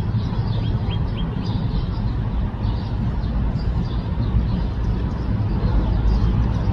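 Steady low outdoor rumble, with a few short bird chirps about a second in.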